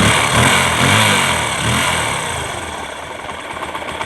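TVS Apache RTR 150's single-cylinder engine running just after starting. It is louder for the first second or so, then settles to a steady idle. Its tappet clearances have just been reset, and the buzzing tappet noise is gone.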